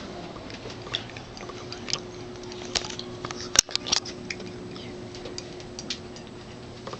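Scattered small clicks and taps, with one sharper click about halfway through, over a faint steady hum.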